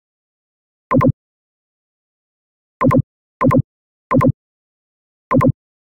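Five short identical electronic blips, each a quick double pop, at uneven intervals with dead silence between them.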